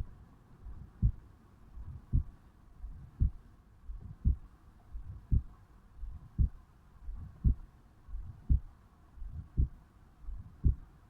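A man's heartbeat recorded over the mitral valve area of the chest, at rest on waking. It beats slowly and evenly, about once a second (roughly 56 beats a minute), and each beat is a pair of low sounds, the first weak and the second strong.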